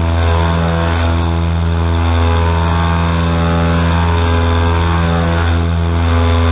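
Airboat engine and air propeller running steadily under power, a loud, even drone.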